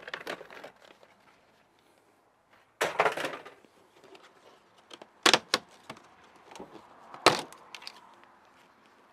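Hard plastic car-interior trim clicking, rattling and snapping as the hood release lever and kick panel trim are worked loose: a short rattle about three seconds in, two sharp clicks about five seconds in, and a louder snap about seven seconds in.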